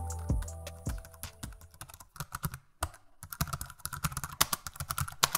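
Music with its last notes fading away over the first two seconds, then fast, irregular clicking of typing on a computer keyboard.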